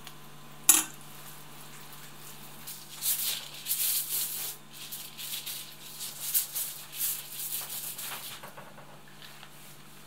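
Aluminium foil crinkling and rustling in irregular bursts for several seconds as it is handled and spread over, after a single sharp click near the start. A low steady hum runs underneath.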